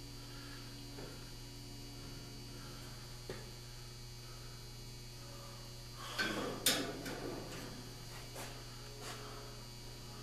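Steady low electrical hum. About six seconds in comes a brief rustle of handling with one sharp click.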